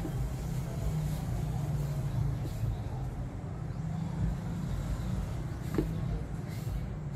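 A steady low hum, with a few faint taps and scrapes as a small glass presses crushed biscuit crumbs into a glass dish.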